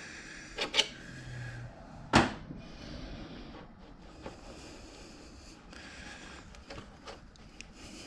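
Steel front axle of a 1988 Honda Goldwing 1500 being twisted loose and slid out of the fork and wheel hub: a couple of light clicks, a sharp metallic knock about two seconds in, then stretches of metal scraping and rubbing as the axle is worked out. The axle is stiff from having been in place a long time.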